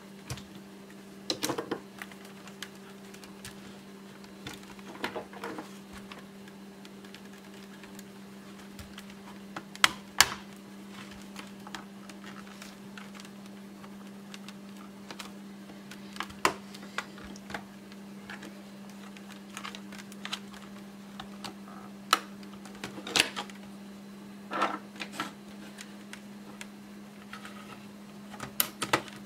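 Scattered sharp clicks and taps of a screwdriver and fingers working on a laptop's plastic case and screws during disassembly, with a couple of louder knocks about ten seconds in, over a steady low hum.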